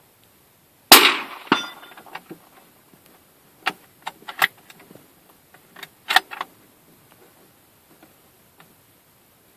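One suppressed .308 rifle shot from a CZ 550 Varmint through a titanium suppressor about a second in, followed a little over half a second later by the clang of the bullet striking a distant steel gong. A few seconds later comes a run of metallic clicks and clacks as the bolt is worked to eject the case and chamber the next round.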